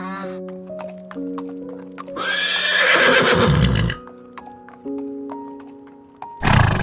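A horse neighs once, a whinny of about two seconds whose pitch falls away, over background music with steady held notes. Sharp clicks like hoofbeats come before it, and a short loud burst of noise comes near the end.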